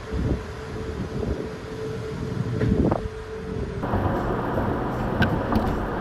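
Golden Gate Bridge humming in high wind: one steady, held, mid-pitched tone over gusts of wind on the microphone. The hum is put down to wind across the newly installed railings. About four seconds in, it gives way to the rushing road and wind noise of a car crossing the bridge.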